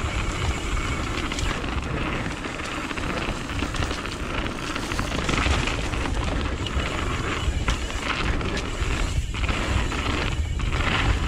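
Mountain bike descending a dirt trail at speed: wind buffeting the microphone in a constant low rumble over the rush of tyres on dirt, with short rattles and knocks from the bike.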